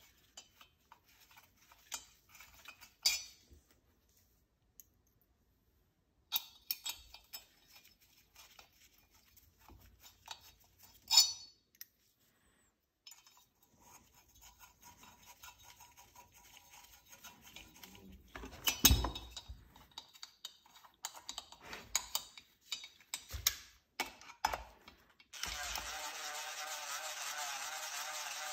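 Small metal parts and tools clinking and tapping as the head bolts are threaded by hand into a Husqvarna chainsaw's cylinder, with a louder knock about two-thirds of the way through. Near the end a cordless drill-driver starts running steadily, driving the 4 mm Allen head bolts.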